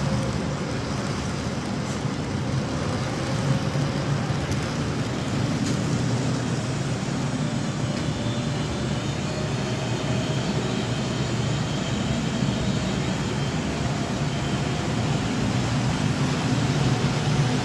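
Model train running on the layout's track: a steady rolling rumble of wheels on rail with a faint motor whine above it.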